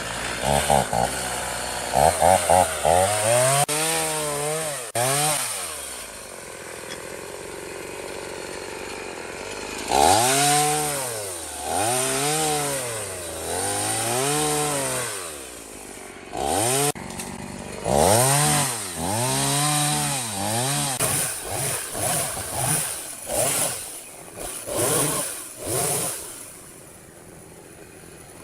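Chainsaw engine revved in repeated bursts, its pitch rising and falling about once every second and a half. Between the bursts it drops back to a lower running speed.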